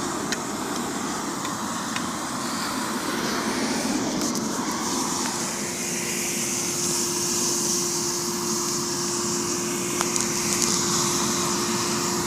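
Small air blower forcing air into a brick charcoal furnace: a steady rushing noise from the blower and the fanned fire, with a steady hum joining in about five seconds in and a few faint clicks.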